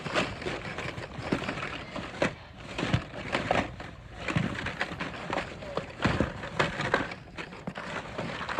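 Hot Wheels blister packs being shuffled by hand in a cardboard bin: a run of irregular crackles, clicks and clacks as plastic blisters and card backs knock and rub against each other and the box.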